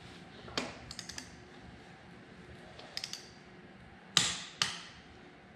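Click-type torque wrench on a BMW R1200RT final drive plug: a few light clicks, then two sharp, louder clicks about half a second apart near the end as the wrench reaches its set torque of 20 N·m.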